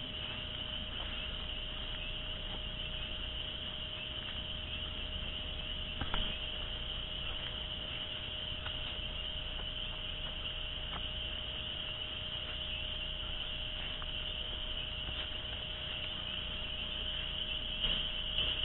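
Chorus of many spring peepers calling together, a steady high-pitched shrill of overlapping peeps that grows louder near the end.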